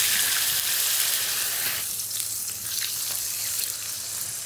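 Raw chicken breasts frying in hot olive oil in a skillet: a steady high sizzle that eases off somewhat over the last couple of seconds.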